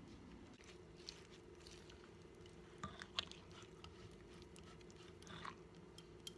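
Wooden pestle working a wet mash of fish, chili paste and green onions in a clay mortar: a few faint, scattered soft knocks and squelches over a low steady hum.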